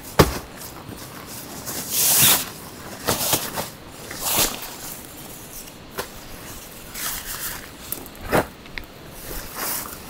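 Irregular crunching steps of boots on gravel, with the rustle of a fabric bag being carried and set down on the gravel.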